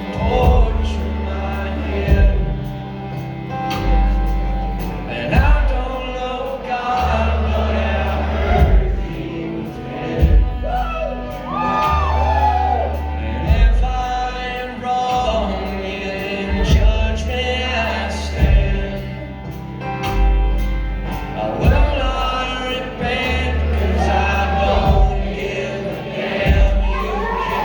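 Live acoustic country band playing a slow song, with deep bass notes moving on a steady beat, regular strummed or struck accents, and singing voices over the top.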